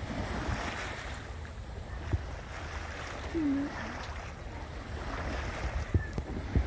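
Sea water washing past a sailboat's hull in gentle swells, with wind on the microphone and a few low thumps of wind buffeting. A short low tone sounds once about halfway through.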